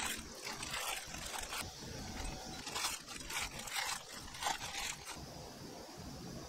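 A hand in a thin plastic glove tossing seasoned soybean sprouts in a glass bowl: a quick series of rustling, squishing strokes as the glove crinkles and the sprouts rub against the glass. The strokes stop about five seconds in.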